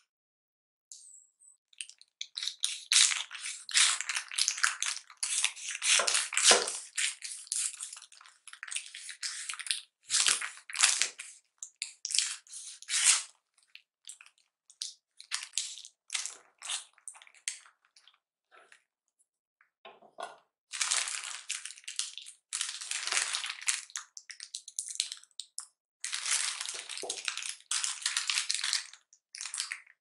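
A knife sawing through a paper-wrapped sandwich, with the wrapping paper crinkling and crackling and the bread crunching, in long runs of strokes broken by short pauses.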